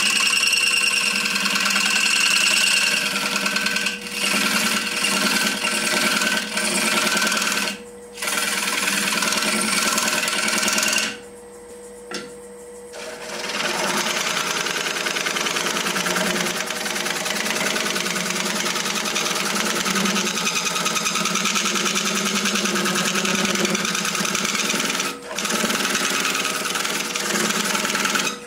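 A turning tool cutting the inside of a spinning wooden sphere on a lathe, making a steady scraping cut over the lathe's hum. The cut stops briefly about 8 seconds in and near the end, and for about two seconds around 11 to 13 seconds in, when only the lathe's hum is left.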